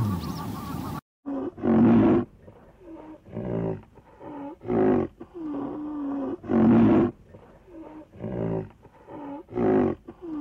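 Big cat roaring: a series of roars begins about a second in, with loud calls every one and a half to two seconds and softer calls in between.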